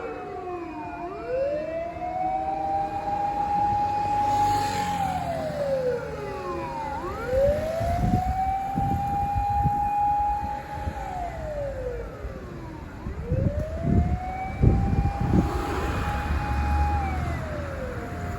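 Fire engine's electronic siren sounding a slow wail: each cycle rises, holds at a steady high pitch, then falls, repeating about every six seconds. Low rumbling thuds come through around the middle of the stretch.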